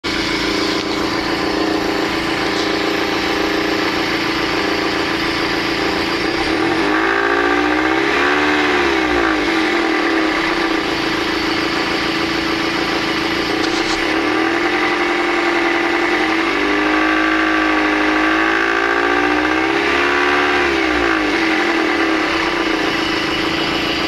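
Toyota 3ZZ-FE 1.6 VVT-i inline-four running, revved up and back down a few times in two spells, about seven seconds in and again from about sixteen seconds. At certain revs it gives a rattling resonance, which the owner takes for the intake manifold's internal partition.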